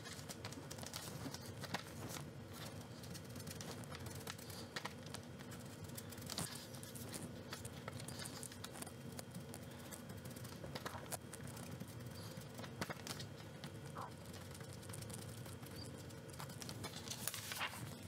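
Faint, irregular taps of a small ink sponge dabbing ink onto paper flower petals, with light handling of paper.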